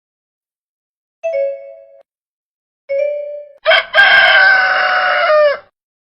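A rooster crowing once, a loud call of about two seconds that drops in pitch at the end. Before it come two short, fading ringing tones, like a chime.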